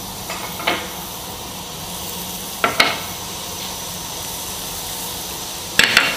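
Diced onion sizzling in hot oil in a nonstick frying pan, an even hiss as it starts to sauté. A few sharp clicks cut through it: one just under a second in, a pair near three seconds, and a cluster near the end.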